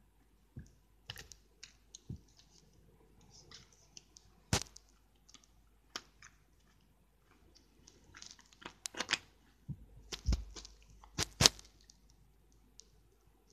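Toy sonic screwdrivers being handled, giving scattered clicks and knocks of their parts. There is one sharp knock about four and a half seconds in, then a busier run of clicks and knocks from about eight to twelve seconds in.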